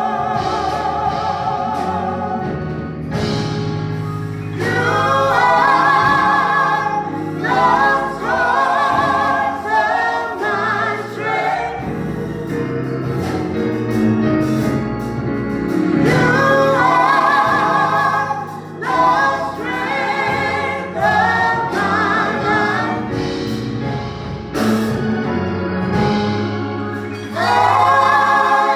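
Gospel choir singing with vibrato in phrases over instrumental accompaniment.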